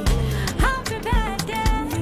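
Background music with a steady beat, about two beats a second, under a sliding melody line.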